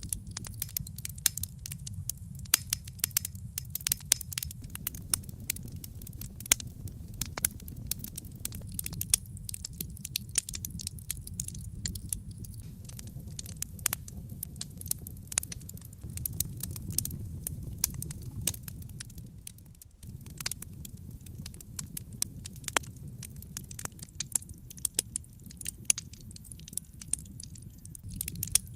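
Wood fire crackling, with frequent sharp pops and snaps over a steady low rumble of the flames.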